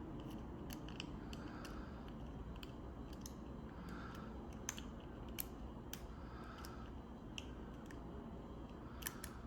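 Lock pick working the pins of a Chateau C870 disc padlock: faint, irregular metallic clicks and light scrapes, with a quick double click near the end. The pins are giving little feedback.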